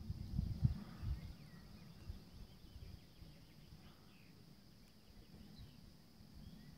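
Gusty wind rumbling on the microphone, strongest in the first second or so, over a steady high hiss, with faint birds chirping.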